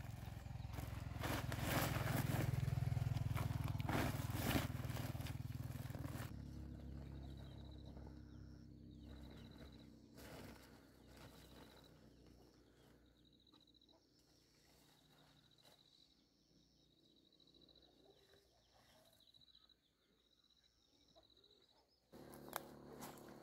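Rustling and crackling of a woven plastic sack being packed with bananas over a loud low rumble. After a cut the rumble fades slowly, and a short high chirp repeats about once a second.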